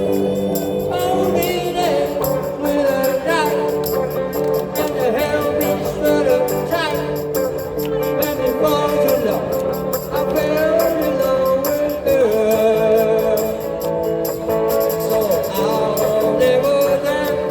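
Live band music from a small busking band: guitar accompaniment under a wavering, bending melody line, playing without a break.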